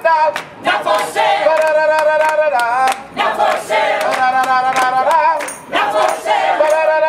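Choir singing long held notes, with sharp percussive taps running through the singing.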